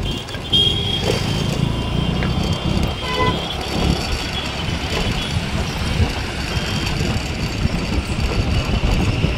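Road noise from riding a scooter along a highway with the phone microphone in the open air: an irregular low wind rumble over the microphone, with passing traffic and a short horn toot about three seconds in.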